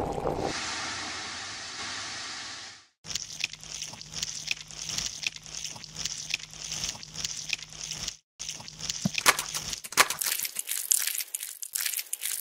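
Fizzing hiss from a freshly opened soda can, fading out over about three seconds. Then comes a run of small crackling clicks and squishes over a low steady hum, the added sound effects for eels sliding out of the can. The clicks turn sharper and louder in the last few seconds.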